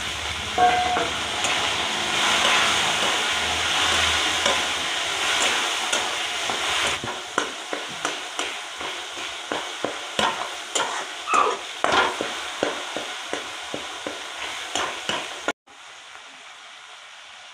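Chopped tomatoes sizzling in hot oil in a steel kadhai on a gas stove, a dense steady sizzle at first. Then a metal spatula stirring and scraping the pan in quick irregular ticks and taps over the frying, which cuts off abruptly near the end.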